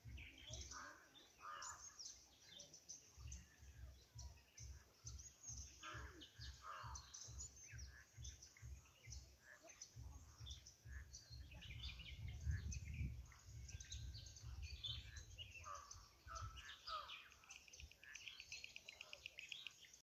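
Faint chorus of small birds chirping and calling, with a rapid trill near the end, over a low uneven rumble.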